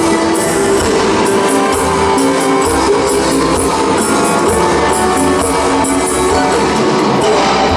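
Live Tejano-norteño band playing an instrumental passage: bajo sexto strumming a steady rhythm under accordion, with the band's bass and drums.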